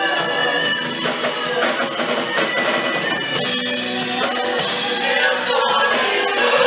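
Christian worship song: voices singing over a full band with drums.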